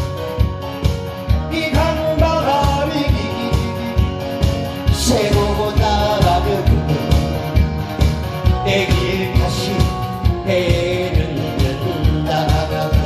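A man singing a Korean trot song into a microphone over a backing track with a steady beat of about two pulses a second. The voice comes in about a second and a half in.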